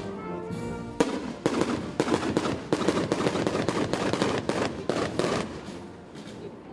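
A rapid string of firecrackers crackling for about four seconds, starting sharply about a second in, over a brass band playing.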